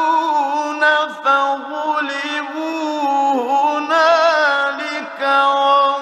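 A man reciting the Quran in the melodic tajweed style, holding long notes that waver up and down in ornamented runs, with short breaks for breath about a second in and near the end. The sound is that of an old radio recording, with no bass.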